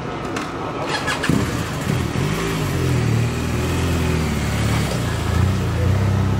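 A motor vehicle engine running close by. It comes in suddenly about a second in, after a few short clicks, and its pitch rises and falls a little.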